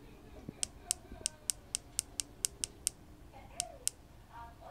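Keys on the keypad of a Harris Falcon II RF-5800H-MP radio clicking as they are pressed in quick succession to step through its menus, about four sharp clicks a second for a couple of seconds, then two more.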